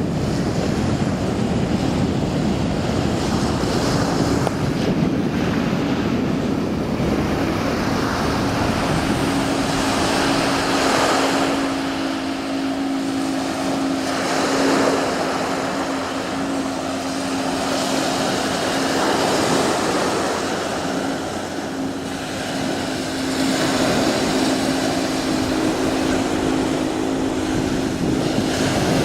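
Small surf waves washing up on a beach, swelling and easing every few seconds, with wind buffeting the microphone. A steady engine drone joins a few seconds in and continues under the waves.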